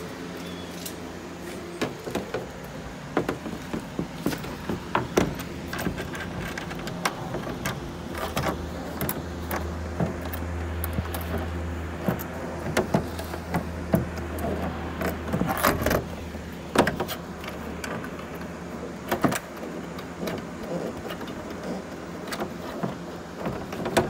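Wide-body fender panel being handled and pressed against the car's body: scattered knocks, taps and light rattles, over a low steady hum that swells for a few seconds around the middle.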